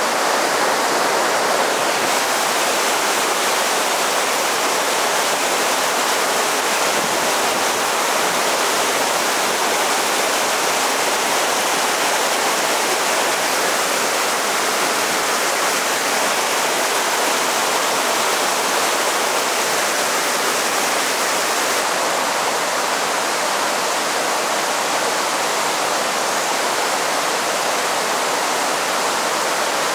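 Mountain river rapids: white water rushing over rocks in a steady, even roar-free rush with no pauses.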